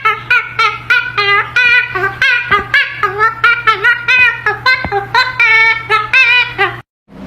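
A high voice singing a rapid run of short, bending notes, about four a second, over a steady low hum, cutting off suddenly near the end.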